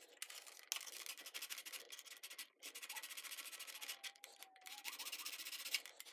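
Sandpaper rubbed by hand in quick back-and-forth strokes on a plastic shifter bezel, with a few brief pauses, bevelling the back edge of a cut switch opening so the switch clips catch better.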